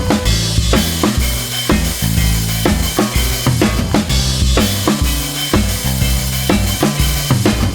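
Background music: a drum-kit-led track with a steady beat over a stepping bass line, and a cymbal crash twice, about four seconds apart.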